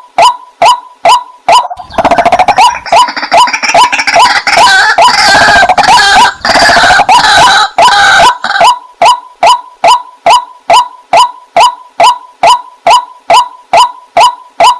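Waterhen calling: a short, loud call repeated about twice a second in a steady, monotonous train. From about two seconds in to about eight and a half seconds, several more calls overlap into a dense chorus, then the single even series resumes.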